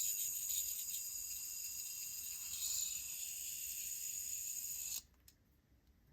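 Fidget spinner's bearing spinning with a steady, high-pitched screechy whine that stops abruptly about five seconds in, then starts again at the very end.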